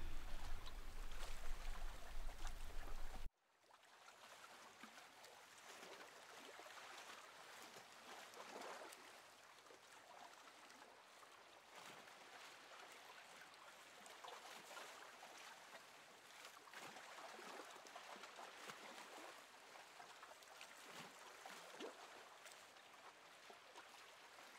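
Near silence: a faint room hiss. A low hum with background noise cuts off suddenly about three seconds in, leaving only a faint, even hiss.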